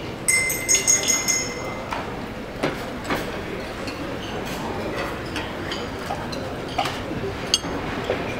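A bright ringing tone from a single strike sounds just after the start and rings for about a second and a half, followed by scattered sharp taps and clinks of stage percussion props.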